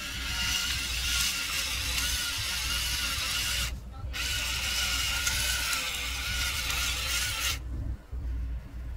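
Hand-twisted salt grinder grinding over a bowl of chicken in two bouts with a short pause between them, the ratcheting stopping near the end.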